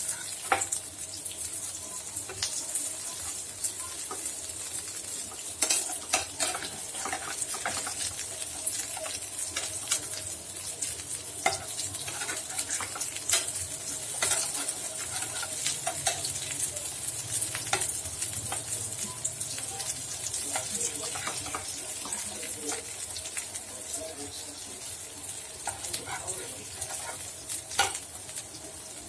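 Potato patties shallow-frying in hot oil in a pan: a steady high sizzle with scattered sharp crackles and pops.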